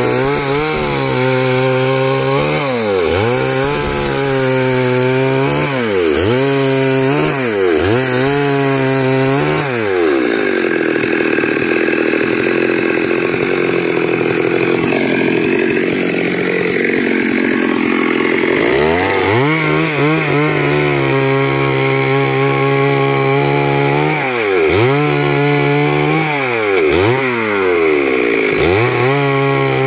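Stihl two-stroke chainsaw ripping lengthwise along the grain of a squared log, running loud throughout. Its engine pitch dips and climbs back again every second or so as the chain bites into the wood and eases off. For a stretch in the middle it runs more steadily before the dips resume.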